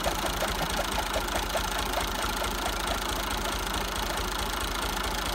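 Farm tractor's diesel engine running steadily at idle while it drives a chaff cutter through a shaft, with a regular ticking about five times a second.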